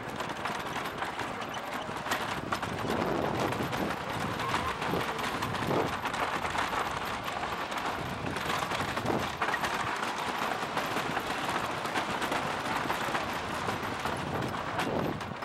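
Wooden roller coaster train running at speed over its wooden track, the wheels rattling and clattering continuously over the rails.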